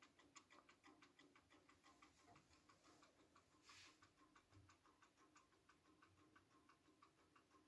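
Faint, even ticking of the Vedette transistor wall clock's battery-driven Japanese ATO-MAT movement, several ticks a second.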